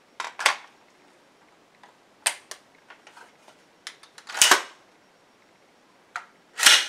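AR-15 rifle being reassembled by hand: its upper receiver swung shut onto the lower and pinned. A string of sharp metal clicks and clacks, the loudest about four and a half seconds in and near the end.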